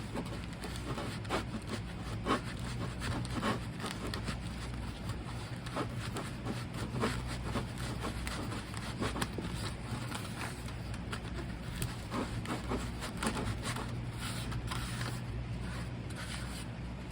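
Irregular short scraping and rubbing as casting sand is worked by hand and tool to set up a sand mould, over a steady low hum.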